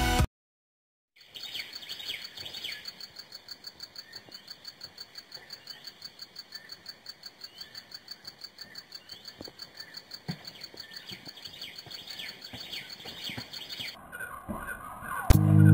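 Birds chirping outdoors, with a fast, even pulsing call at about five a second and scattered rising chirps. Electronic music comes in near the end.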